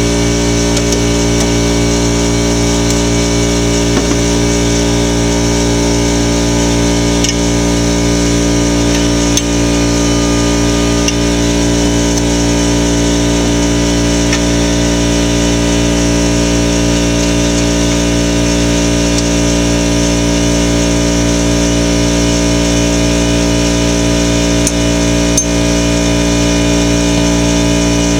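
A motor or engine running steadily with an unchanging drone, with a few faint ticks of tools over it.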